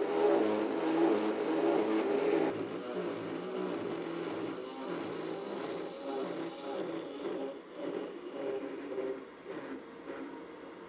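Saw-Ray magnetic saw's electric motor running as its blade cuts a welded-on steel lug off flush with the plate. It drops abruptly to a quieter, steadier run about two and a half seconds in.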